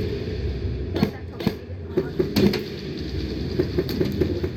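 Airsoft guns firing scattered single shots, sharp irregular clicks and pops, over a steady low background hum.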